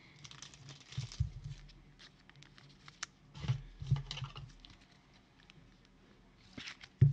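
Trading cards being handled at a table: a run of light clicks and taps as cards are slid and shuffled. A single sharper knock comes near the end.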